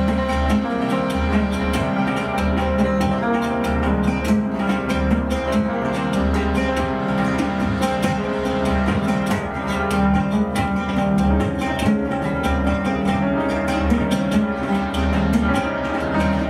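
Live ensemble music: an oud plucked in a dense stream of notes over held synthesizer tones from a Roland Juno-6.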